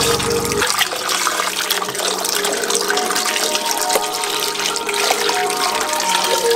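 Tap water running and splashing into a plastic cup and a basin of water while hands rinse the cup under the stream.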